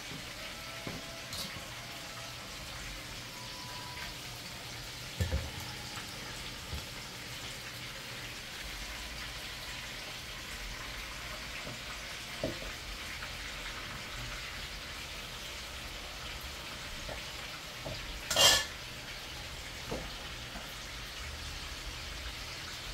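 Chicken pieces frying in hot oil in a frying pan, a steady sizzle, with a few metal clinks of kitchenware; the loudest is a sharp clink about eighteen seconds in.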